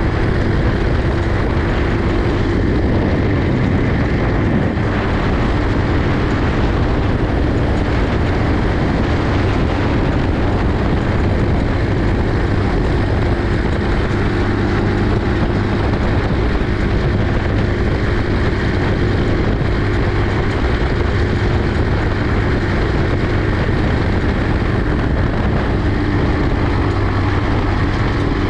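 The engine of a 50cc four-wheel buggy running steadily under way, a constant drone with a rushing noise over it.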